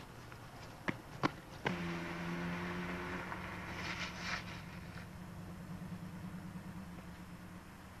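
Two sharp clicks, then a car engine running with a steady low hum that starts suddenly and slowly fades, with a brief hiss in the middle.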